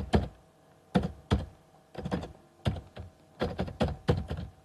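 Computer keyboard typing: irregular clusters of keystroke clicks with short pauses between them.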